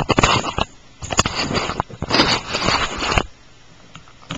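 Scraping and clattering of small plastic toys being handled and moved about, in quick irregular strokes with a brief pause about a second in, stopping a little after three seconds in.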